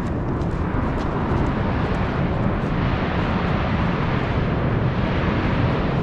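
Steady rumbling of Mount Bromo's active volcanic crater.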